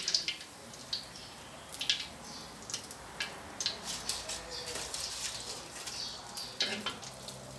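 Metal spatula clinking and scraping against a wok and a metal strainer as fried bread slices are lifted out of hot oil, several sharp clicks scattered through, over a light sizzle of the frying oil.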